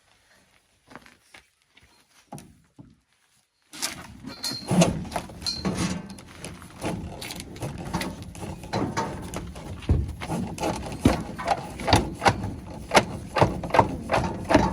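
A restrained cow knocking and clattering about during hoof trimming: a dense run of irregular sharp knocks that starts suddenly about four seconds in, after a near-quiet stretch with a few faint clicks.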